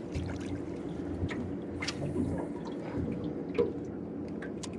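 Water dripping and splashing, with scattered small clicks and knocks over a steady low rumble.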